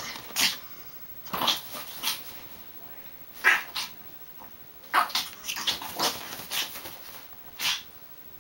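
Japanese Chin giving a string of short, sharp yaps and growls as it attacks sofa pillows, with a quick run of them about five seconds in.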